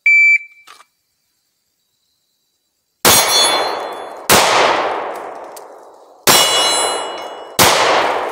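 Shot timer beeps once, then about three seconds later four handgun shots in two pairs, the shots in each pair about a second and a half apart. Some shots are followed by the ringing of steel targets being hit.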